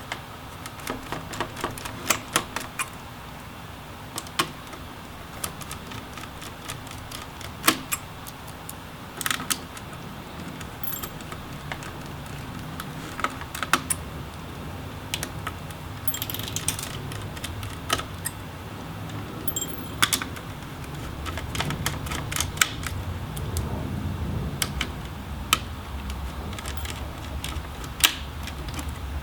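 Small tools and screws clicking and tapping irregularly against a laptop's metal and plastic parts as its fans and heat sink are unscrewed and taken out.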